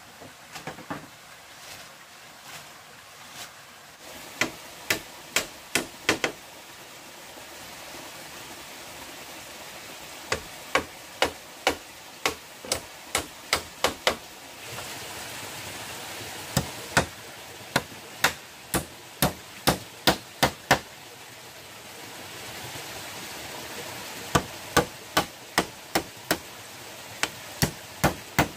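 Runs of sharp, evenly paced strikes, about two to three a second, of a tool hitting bamboo, in four bursts with pauses between, over the steady rush of a small stream.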